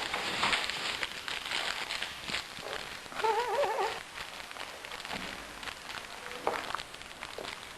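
Baby hiccuping: short, sudden hiccup sounds among small clicks and rustles, with a brief wavering vocal sound from the baby about three seconds in.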